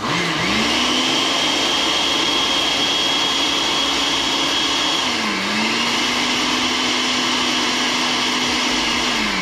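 Countertop blender pureeing vegetables: the motor spins up to a steady whine, dips in pitch briefly about halfway through and spins back up, then slows at the end.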